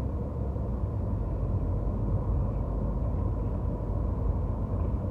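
Steady low rumble of a car heard from inside its cabin, with a faint steady tone above it.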